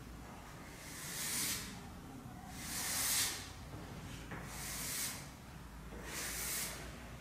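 Chalk scraping down a blackboard in four long vertical strokes, each a scratchy hiss of under a second, about one and a half seconds apart.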